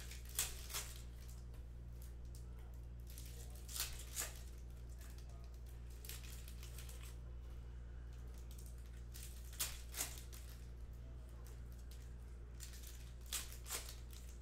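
Basketball trading cards being handled and sorted by hand over a stack: crisp card snaps that come in pairs every few seconds, with soft sliding rustles between, over a low steady hum.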